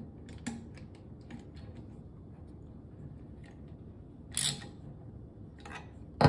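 Socket ratchet ticking lightly and unevenly as it turns the bolt that holds the stock tube to the grip adapter. Later come two louder clatters and a sharp click near the end as the tools and rifle parts are handled.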